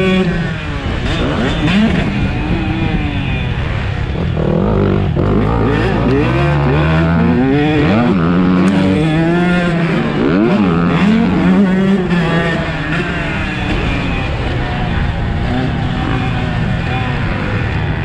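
Husqvarna TC 125's two-stroke single-cylinder engine heard from on the bike, revving hard and dropping off again and again as it is ridden through jumps and corners, its pitch climbing and falling every second or two.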